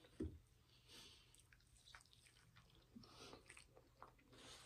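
Faint chewing of food close to a microphone, with scattered soft mouth clicks and a brief low sound just after the start.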